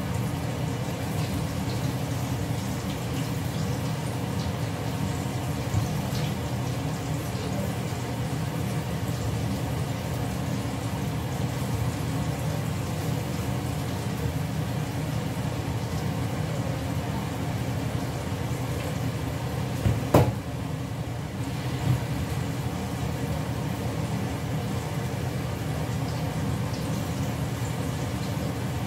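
Steady low rumble of a kitchen stove with a wok cooking on the gas burner, with one sharp clink of a utensil about twenty seconds in.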